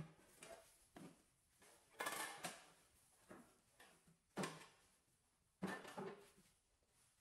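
Tools and an electric cord being handled and loaded onto a wheelbarrow: about five separate clatters and knocks, the longest about two seconds in.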